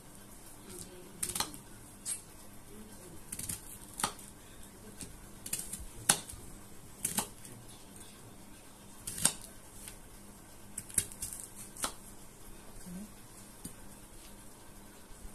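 Kitchen knife cutting an onion on a thick wooden chopping board: sharp, irregular knocks as the blade strikes the wood, roughly one a second.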